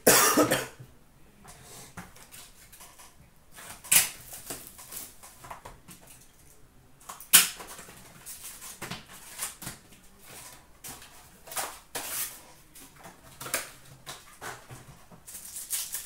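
Hands handling a trading-card box and foil card packs: crinkling and rustling of wrappers, with several sharp tearing or crackling bursts a few seconds apart.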